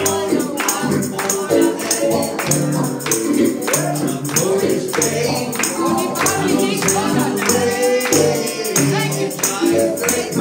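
Gospel song sung by the preacher and congregation together, with a tambourine struck on a steady beat, about two strokes a second.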